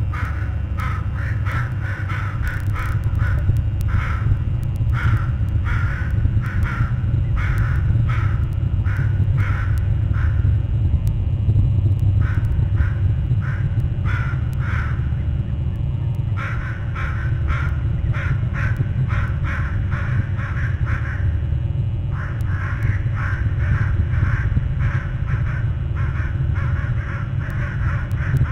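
Crows cawing loudly and repeatedly in quick runs, stirred up, with brief pauses about ten and twenty-one seconds in. A steady low rumble runs underneath.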